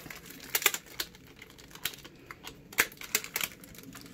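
Irregular sharp clicks and light crinkles of a plastic-bagged rifle scope being handled and unwrapped.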